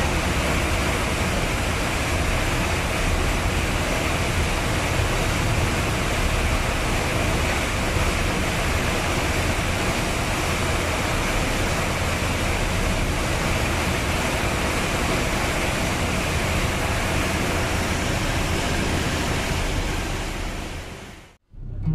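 Steady rush of churning wake water and wind aboard a moving ferry, over a low drone from the ship's engines. It fades out near the end.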